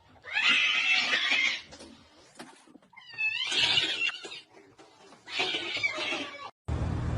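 A domestic cat meowing in three long calls, each a little over a second long, with pauses between them.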